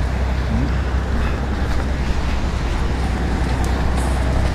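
Steady low rumbling noise of wind and a calm sea.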